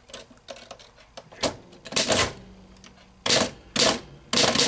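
1933 Underwood Champion Standard manual typewriter being typed on slowly, one key at a time. Faint clicks come first, then about five loud type strikes at uneven intervals, mostly in the second half.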